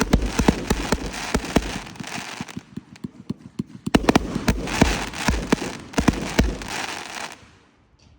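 Fireworks going off in rapid succession: dense bangs over a crackling hiss, in two volleys. The second volley starts about four seconds in, and the sound dies away near the end.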